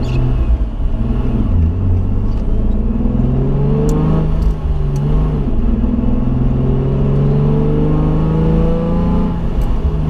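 Supercharged Nissan 350z engine pulling under acceleration, its pitch climbing, dropping at a gear change about four and a half seconds in, then climbing again more slowly.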